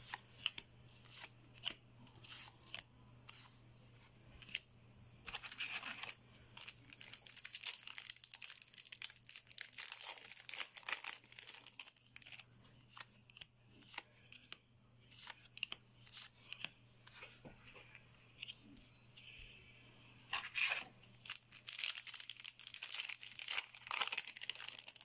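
Yu-Gi-Oh trading cards being flipped through and slid over one another in the hands, a run of light clicks and rustles. Near the end a foil booster pack crinkles and tears as it is opened.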